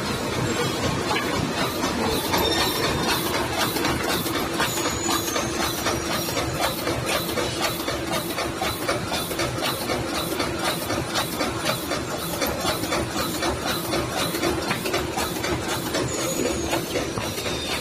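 Automatic book sewing machine running, with a fast, even mechanical clatter of about three strokes a second over a steady hum and hiss.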